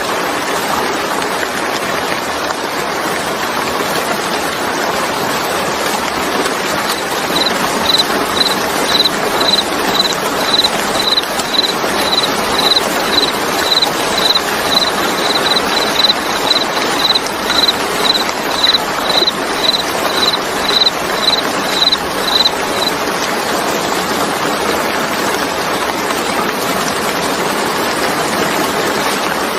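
Steady rain falling. From about seven seconds in until near twenty-three seconds a short high chirp repeats evenly, about twice a second.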